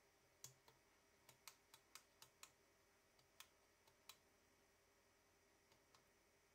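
Faint, sharp clicks from the switches of a homemade Arduino lathe control box being set by hand: a quick run of about eight clicks in the first couple of seconds, a few more around three to four seconds, and two near the end.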